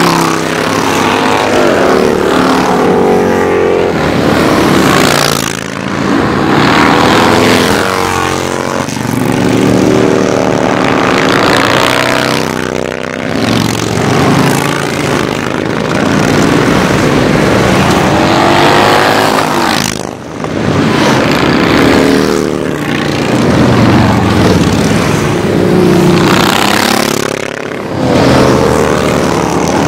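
Motorcycles, mostly big cruiser and touring bikes, riding past in a steady stream, their engines swelling and fading as each group goes by, with a brief lull about two-thirds of the way through.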